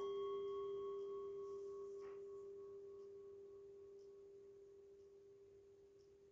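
Metal singing bowl struck once, ringing with a steady low tone and a few fainter higher overtones, the whole fading slowly. A faint tap sounds about two seconds in.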